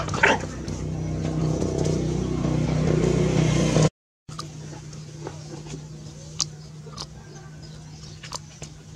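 A motor vehicle's engine running with a steady low hum, growing louder over about four seconds until it cuts off abruptly. After that a fainter steady hum carries on with scattered light clicks.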